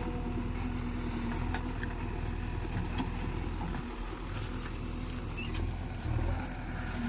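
JCB 3DX backhoe loader's diesel engine running steadily, with a few faint clicks.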